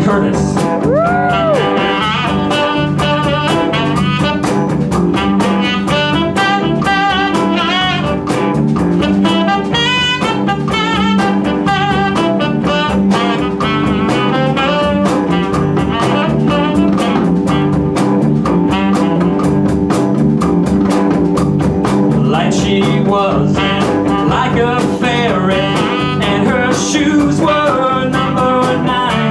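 Live band playing a bluesy, jazz-leaning number: saxophone, electric guitar, bass, drum kit and hand drum.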